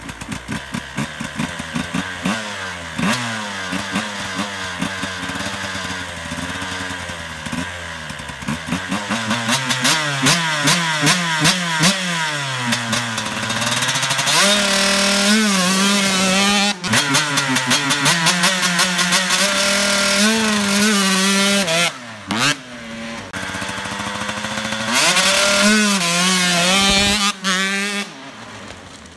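KTM 125 two-stroke dirt bike with an FMF exhaust being ridden hard. The engine revs up and down as it is shifted, holds high revs for stretches, and drops off sharply twice, the second time near the end.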